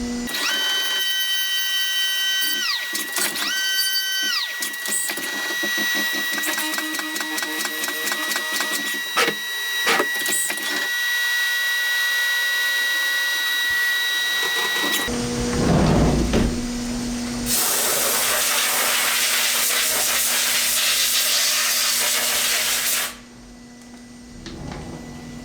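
Vertical CNC mill machining 6061 aluminum. The spindle whines up and down twice, then runs with a steady high whine and rapid chatter as the tool cuts for about twelve seconds. About fifteen seconds in, the sound changes to a low rumble and then a loud steady hiss, which cuts off abruptly near the end.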